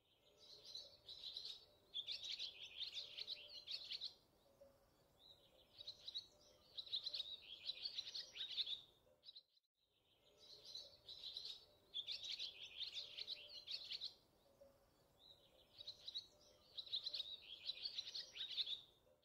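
Small birds chirping and twittering in bursts every second or two. The same stretch of about ten seconds plays twice, with a brief dropout between. A faint steady tone sits underneath.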